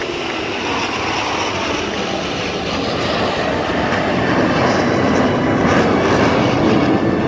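Jet noise from the Blue Angels' F/A-18 Hornet fighter jets flying overhead in formation: a steady, dense roar that grows slightly louder.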